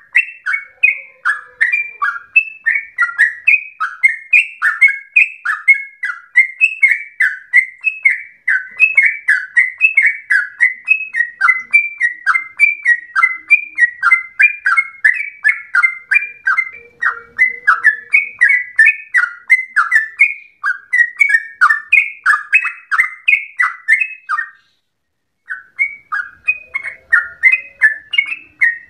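Yellow-vented bulbul (trucukan) singing a long unbroken run of short, loud notes, about three a second, in the rolling 'ropel' style. The song stops for about a second near the end, then starts again.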